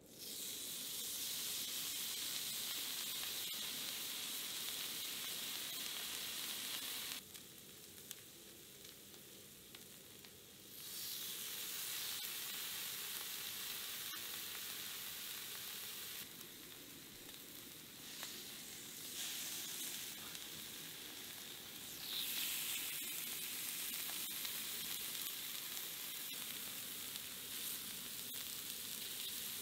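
Slices of raw pork belly frying on a hot domed grill pan, with a steady sizzle. The sizzle starts suddenly as the first slice goes onto the pan. It drops off for a few seconds about seven seconds in, then comes back.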